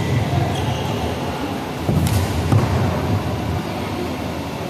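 Badminton racket strikes on a shuttlecock: sharp cracks at the start and about two seconds in, over a steady low rumble.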